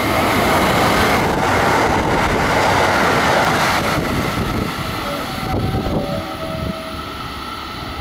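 KiHa 189 series diesel multiple unit running through a station at speed without stopping: a loud rush of wheels on rail and diesel engines for the first four seconds or so, then fading as the train draws away.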